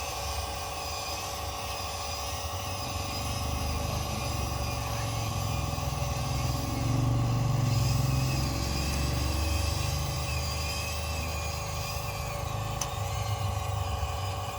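Heavy diesel vehicle engine running, its low rumble growing louder around the middle, under a steady high whine.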